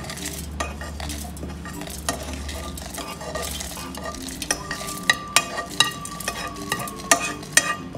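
Steel spoon scraping dry-roasted spice mix (coriander seeds, groundnuts, sesame, dry coconut, red chillies) out of a nonstick pan, the dry bits rustling and pattering into a stainless-steel mixer-grinder jar. In the second half the spoon knocks sharply against the pan and jar several times, with a faint ringing note.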